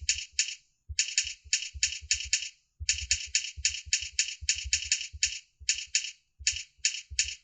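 Computer keyboard being typed on, keystrokes clicking in quick succession at about four a second, with two brief pauses.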